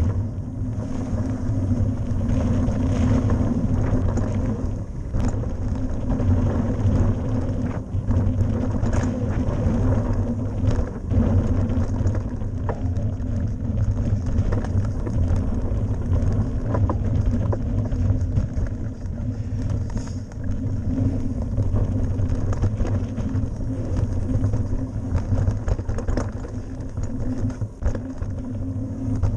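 Mountain bike ridden fast down a dirt forest trail, heard from a camera on the bike: a steady low rumble of tyres and wind noise, with frequent small clicks and knocks as the bike rattles over bumps.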